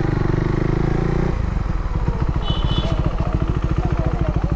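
Motorcycle engine running, then dropping back to a steady, evenly pulsing idle about a second in.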